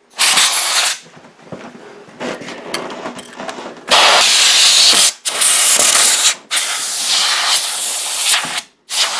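Can of compressed-air duster spraying behind a wall thermostat through its straw, in hissing blasts. There is a short blast just after the start, then several longer blasts of about a second or more each from about four seconds in.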